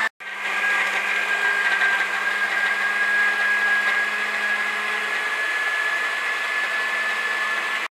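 Electric blender running steadily as it purees mango chunks with sugar, a high motor whine holding one pitch. It stops abruptly near the end.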